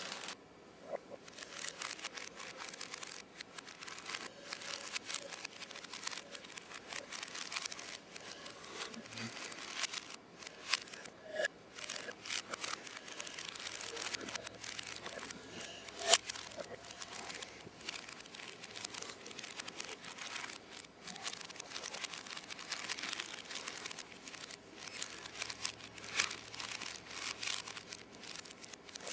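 A plastic Rubik's Cube being turned quickly by hand: a continuous run of small clicks and scratchy rasps, with a few louder clacks.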